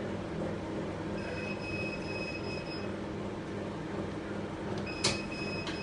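ATM machine hum, with a long high electronic beep about a second in and a click followed by another beep near the end.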